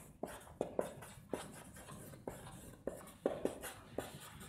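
Marker pen writing on a whiteboard: a faint run of short, irregular squeaks and taps as the tip forms letters.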